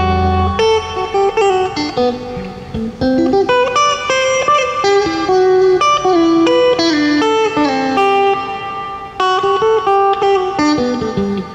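Solo electric guitar played through an amplifier: a melodic line of single held notes, with quick runs of notes between them.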